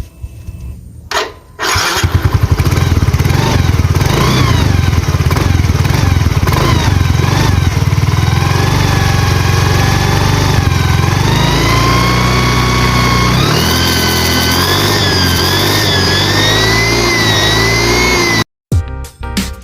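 A motorcycle engine starting and then running and revving. From about eight seconds in, a homemade zinc-sheet whistle adds a high whine that rises and falls with the revs, the fake turbo 'nging'. The sound stops suddenly near the end.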